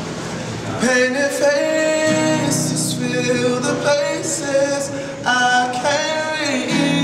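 Man singing with long held notes, accompanying himself on a nylon-string classical guitar. The voice comes in about a second in, over the guitar.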